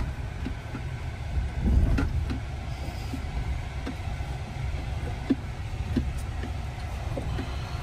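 Low rumble inside the cab of a Tesla Cybertruck crawling at walking pace over a rocky dirt trail, its tyres rolling over stones, with scattered small clicks and knocks. A heavier bump comes about two seconds in.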